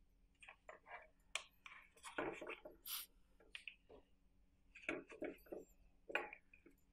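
Handling noise as a black plastic fender holder is fitted onto a plastic fat-tire bike fender by hand: irregular light clicks, taps and scrapes of plastic against plastic and the tabletop.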